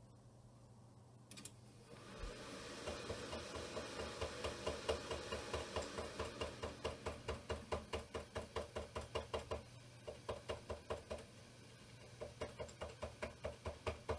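An old Pentium 4 desktop PC powering up: a click, then fans spinning up with a steady rush, then a fast even knocking at about four strokes a second that breaks off twice before starting again.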